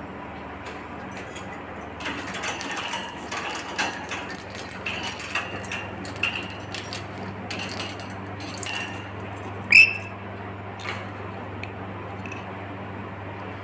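Light clinking and rattling for several seconds, then one short, loud squawk about ten seconds in, typical of a pet lory parrot, over a steady low hum.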